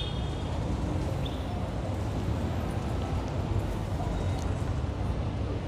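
Busy downtown street ambience: a steady rumble of traffic and background crowd noise, with a few faint clicks and taps.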